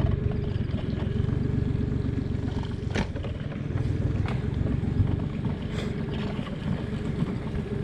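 A small boat's motor running steadily at low speed, with a few light knocks.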